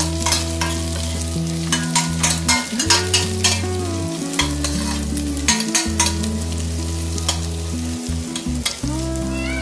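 Onions and chili frying in oil in a pan, sizzling steadily, with a spatula clicking and scraping against the pan at irregular intervals as they are stirred.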